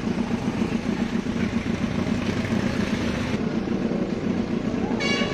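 Harley-Davidson V-twin motorcycles riding slowly past one after another, a steady, pulsing low engine rumble.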